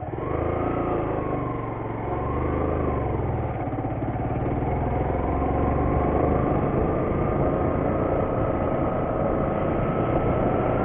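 Motorcycle engine running as the bike is ridden, its pitch dipping and rising over the first few seconds, then climbing slowly as the bike gathers speed.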